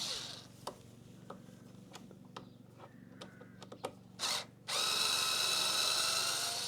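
A few light clicks of parts being handled, then a cordless drill-driver gives a short burst and, about five seconds in, runs steadily with a high whine, its pitch rising slightly, turning one of the radiator guard's fixing screws.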